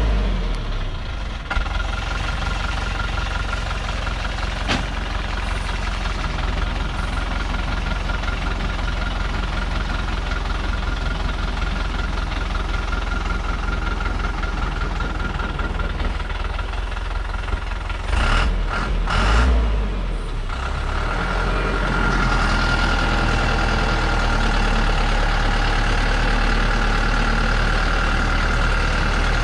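Diesel engine of a cargo truck working under load as it crawls up a steep dirt slope, helped by a cable pulling from ahead. It runs steadily with a thin high whine, surges briefly a couple of times about two-thirds of the way through, then runs a little louder and steadier.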